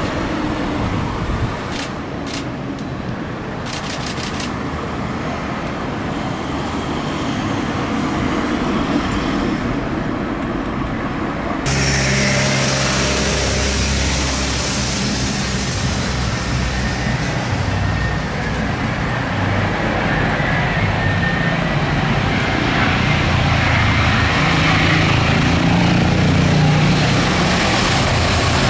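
Jet airliner noise as a Boeing 777 touches down and rolls out on the runway, with a few light clicks. About twelve seconds in the sound changes abruptly to road traffic: a truck, a car and a motorbike running past, over the noise of an airliner's jet engines on approach.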